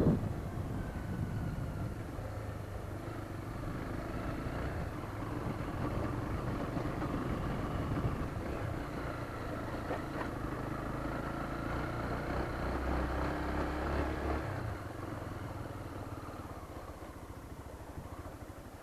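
Honda CB300 motorcycle's single-cylinder engine running while riding, its pitch drifting up and down with the throttle, with wind rushing over the microphone. It grows quieter over the last few seconds as the bike eases off.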